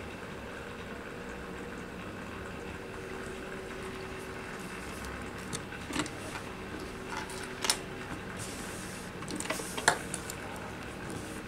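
Handling of an industrial sewing machine before it runs: a few light clicks and knocks about six, eight and ten seconds in, over a steady low hum.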